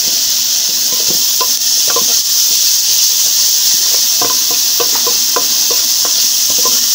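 Chopped onion, green pepper, leek and celery sizzling in oil in an aluminium saucepan with a steady hiss, stirred with a wooden spoon that scrapes and knocks against the pan now and then.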